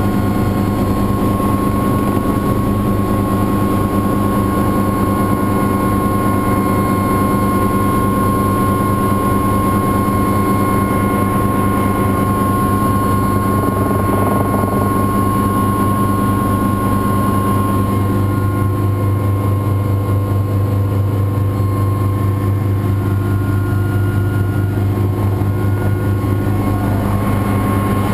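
Helicopter engine and main rotor running in flight, heard from inside the cabin: a loud, steady low drone with a constant higher whine over it.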